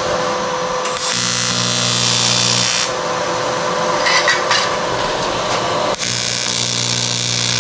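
AC TIG welding arc on aluminium sheet, struck twice to set tack welds: each arc buzzes steadily for about two seconds, the first starting about a second in and the second about six seconds in. A steady hum runs underneath.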